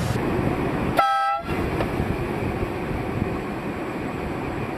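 Steady vehicle traffic noise, with one short horn toot about a second in.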